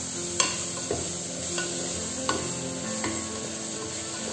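Sliced onions sizzling as they fry in oil and ghee in an aluminium pressure cooker, stirred by a spoon that scrapes and knocks against the pot a few times, about once a second.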